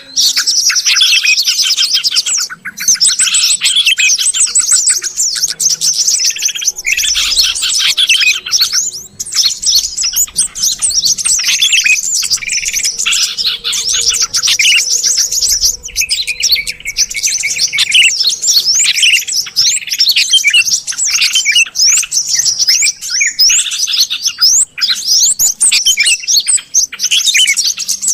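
Dense, continuous chattering and chirping of bulbuls: yellow-vented bulbul song mixed with the agitated, noisy calls of sooty-headed bulbuls, many quick notes overlapping, as used for luring small birds.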